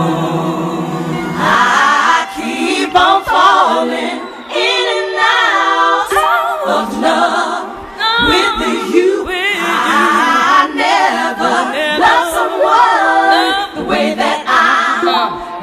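Routine music built on a choir-like vocal track: voices singing with wavering pitch, cut off and restarted abruptly several times in the edit.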